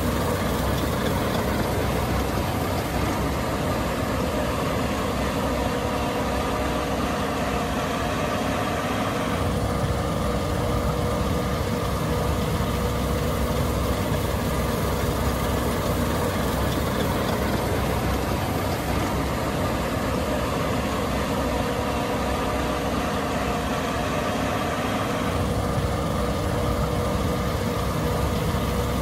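Case IH 8260 Axial-Flow combine running steadily, its diesel engine and machinery making a continuous hum with several steady tones. The tone changes slightly about nine seconds in and again near the end.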